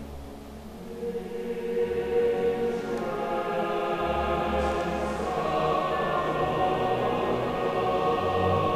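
Slow choral music with long held notes, swelling louder about a second in.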